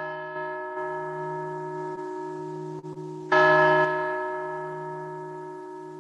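Church carillon bells sounding through an amplifier. One bell tone rings out, a louder strike follows about three seconds in, and each fades slowly.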